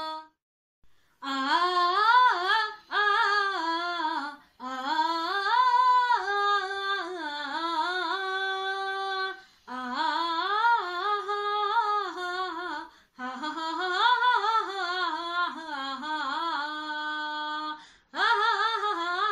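A woman's voice singing unaccompanied in long, ornamented phrases that bend and waver in pitch, with short pauses for breath between them.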